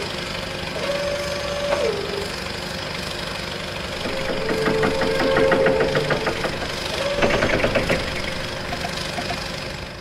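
Toy remote-control excavator running: a steady engine-like rumble, with short motor whines as the boom and bucket move. A few whines hold for about a second and drop in pitch as they stop, and there are stretches of rapid clicking in the middle and near the end.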